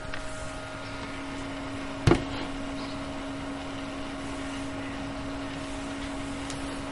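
Cooling fan of an opened Micromark mini fridge running with a steady hum; one sharp click about two seconds in.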